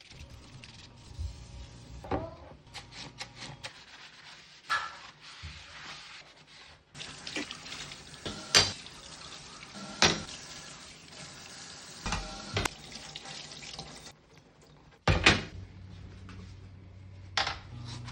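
Tap water running into a sink for several seconds in the middle, with scattered knocks and clinks of hard parts being handled in the sink; the loudest knock comes near the end.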